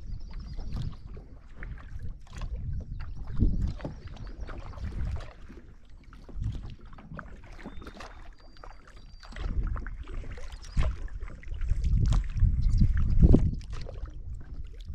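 Kayak paddle strokes: the paddle blade dipping, splashing and dripping water at an irregular pace, with low rumbles that swell and fade, loudest near the end.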